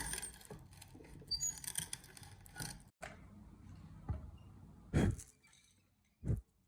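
Scratching and small clicks with a few brief high squeaks. After an abrupt cut come three separate dull thumps, the second the loudest.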